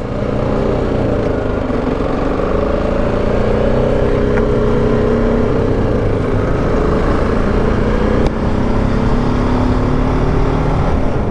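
BMW G310 GS single-cylinder motorcycle engine pulling away, rising in pitch over the first second or so, then running steadily at road speed, with wind noise over the microphone.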